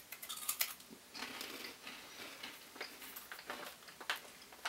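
Crunching and chewing of crispy wasabi-flavoured green pea snack sticks: a run of irregular crisp crackles and crunches.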